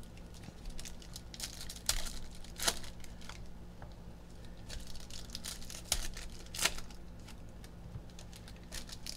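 Trading cards being handled and shuffled into stacks, with the crinkle of torn foil card-pack wrappers: a string of irregular sharp clicks and rustles, a few of them louder snaps.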